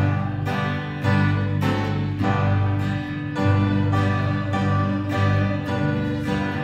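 Instrumental music: a steady run of notes, about two a second, over held bass notes.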